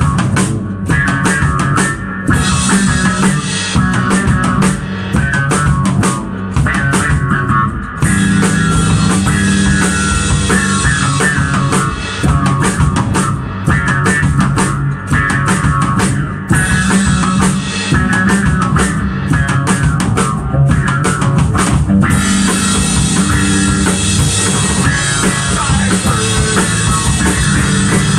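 Electric bass guitar and drum kit playing an instrumental rock passage, with no singing. The playing grows fuller about a third of the way in, and a steady high cymbal wash fills in for the last part.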